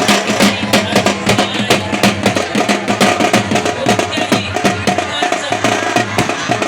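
Loud music driven by fast, evenly repeating drum strokes over steady held tones.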